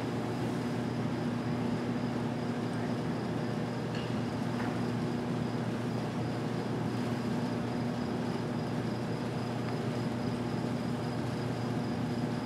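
Steady electrical hum: a constant low drone with a faint high whine above it, holding level throughout, with only a couple of faint ticks about four seconds in.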